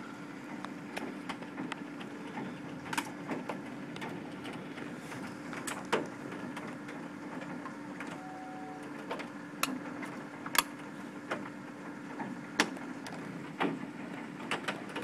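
Heavy hailstorm: a steady rush of falling hail and rain, with sharp irregular clicks and knocks of hailstones striking hard surfaces, several of them loud. A steady low hum runs underneath.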